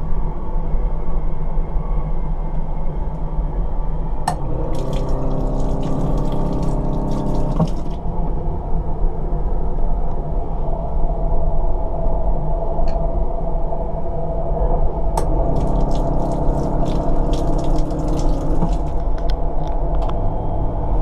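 Sensor tap in a Class 444 Desiro train toilet's wash basin, triggered twice: each time a click, then water running into the basin with a steady hum, over the train's running rumble. The first run starts about four seconds in and lasts about three seconds; the second starts about a third of the way past the middle and runs for about five seconds.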